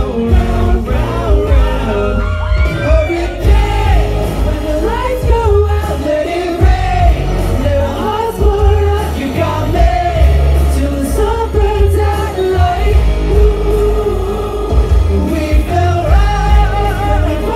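Live pop music: young male singers singing into handheld microphones over loud music with a heavy, pulsing bass beat.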